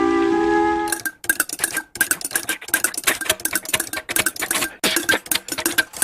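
A held musical chord ends about a second in, followed by fast, irregular clicking and clattering, many strikes a second, each with a short ringing ping.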